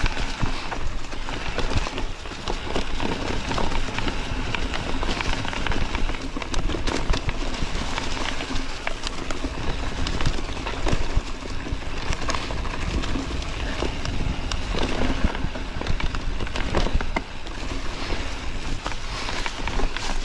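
Mountain bike descending a rough trail: tyres rolling over gravel and stones with a constant clatter of small knocks and rattles, over a steady low rumble.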